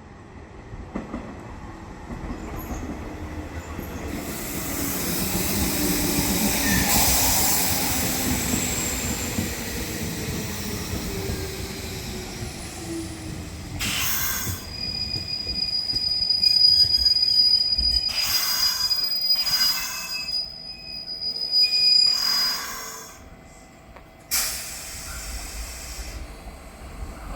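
Electric commuter train passing on steel rails: a rising rush of running noise with a tone that falls in pitch, then a steady high wheel squeal lasting several seconds alongside a series of loud knocks as the wheels run over rail joints.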